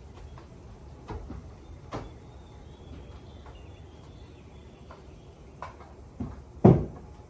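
A few scattered knocks and clunks, like equipment being handled, with the loudest, a heavy thump, near the end.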